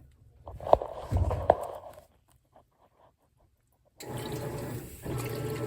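A few sharp clicks and knocks from a Whirlpool WTW4815EW1 top-load washer being handled, with a short rush of noise. The sound then drops out for about two seconds, and the steady hiss of water filling the tub comes back near the end.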